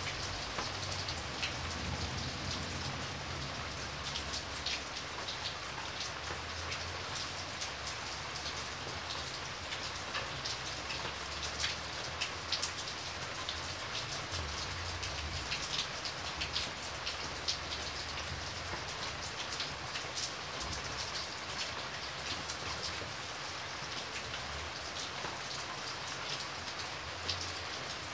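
Steady rain, an even hiss with many individual drops ticking sharply on a hard surface, over a low rumble that rises and falls.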